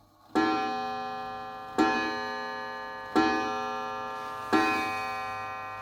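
Napoleon mantle clock striking on its gong: four evenly spaced strokes about a second and a half apart, each ringing out and slowly fading. The restorer says the strike isn't right.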